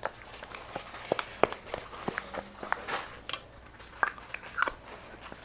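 Slime being squeezed and poked by hand, giving a string of small, irregular pops and clicks.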